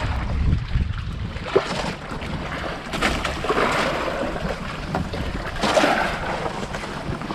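Wind buffeting the microphone with a steady low rumble, and sea water washing against an outrigger boat's hull, swelling twice, about three and six seconds in.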